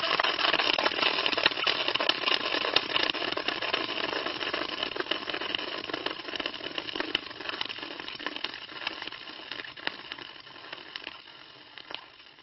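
Car wheel spinning: a gritty rotating noise full of small clicks and crackles that starts abruptly and slowly dies away as the wheel loses speed.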